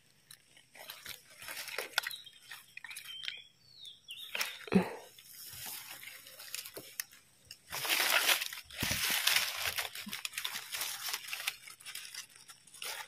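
Dry leaf litter crunching and rustling as gloved hands dig through it while picking mushrooms, with a louder, denser stretch of crunching about eight seconds in. A brief sharp knock about five seconds in is the loudest moment.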